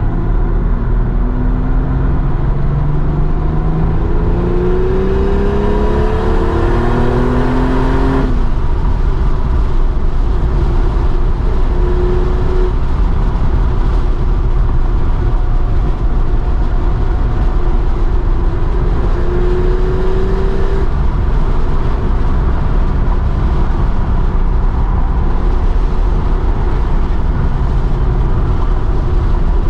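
Porsche 930 Turbo's air-cooled turbocharged flat-six heard from inside the cabin, accelerating with its note rising steadily for about eight seconds before dropping away suddenly. It then runs at steadier revs with a couple of short rises, over constant wind and road noise.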